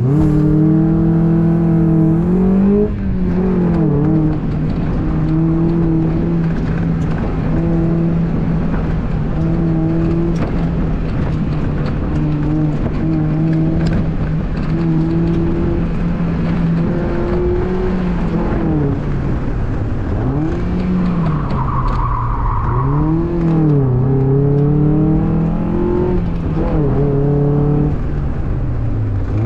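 2002 Mazda Miata's 1.8-litre four-cylinder engine pulling hard on an autocross run, heard from inside the car: the revs hold fairly steady for long stretches, then rise and fall sharply through braking, shifts and throttle blips, with the tyres squealing briefly about two-thirds through.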